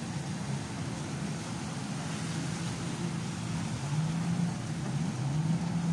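Jet ski engines running out on the water, with a steady engine note that rises in pitch twice as a jet ski speeds up, once about four seconds in and again near the end. A haze of water and wind noise runs under it.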